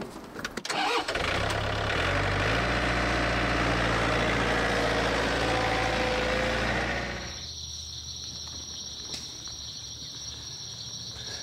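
A vehicle engine starts about a second in and runs steadily, stepping up a little in pitch, with a broad hiss over it, then stops suddenly about seven seconds in. After that a steady high-pitched insect buzz remains.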